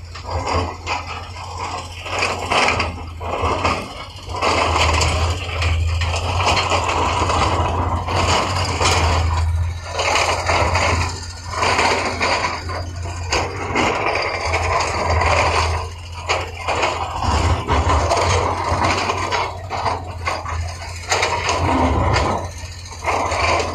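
Heavy earthmoving machine at work: a steady low diesel engine drone under irregular loud rushes of noise, each lasting a second or a few.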